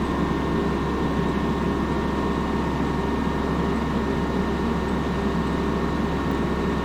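Tractor engine running steadily at a constant speed while the tractor is eased forward on its forks.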